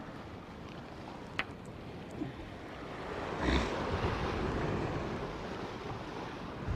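Wind buffeting the microphone over the wash of the sea against the rocks. A single sharp click comes about a second and a half in, and a louder brief gust or swish about halfway through.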